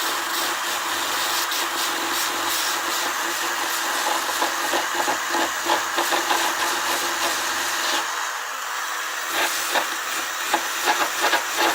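A power drill running with a steady whine while its bit grinds and scrapes into cured Gorilla Glue foam, hollowing it out. Dense, irregular scratching starts about four seconds in, and the motor eases off briefly near eight seconds before the scraping picks up again.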